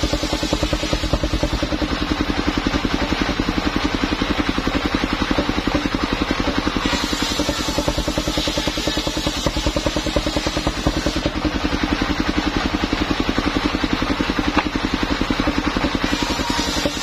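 Mobile circular sawmill (serkel keliling) running: its engine beats steadily and fast while the circular blade rips a log into boards. The rasp of the blade in the wood swells at the start, again from about seven to eleven seconds in, and near the end.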